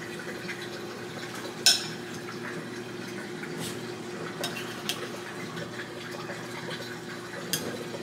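A spoon tapping and scraping against glass bowls as rice-and-chicken filling is scooped into green bell peppers. It gives a handful of sharp clinks, the loudest about two seconds in, over a steady low hum.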